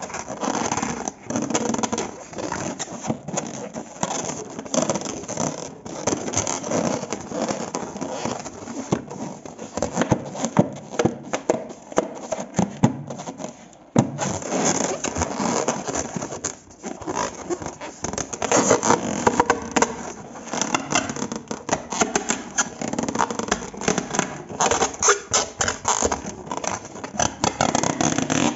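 Slime being mixed and squished: a dense, continuous run of sticky crackles and scrapes, with a short pause about halfway through.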